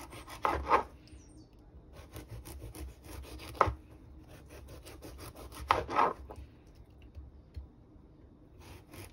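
Serrated kitchen knife cutting the skin off a squash on a cutting board: three louder scraping strokes, about half a second in, near four seconds and around six seconds, the middle one ending in a sharp tap, with quieter rasping of the blade between.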